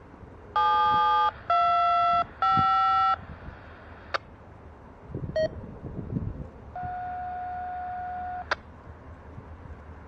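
Touch-tone (DTMF) dialing heard over a radio scanner tuned to the railroad radio: three quick two-tone beeps, a click and a short beep, then a steady tone of about two seconds that ends with a click.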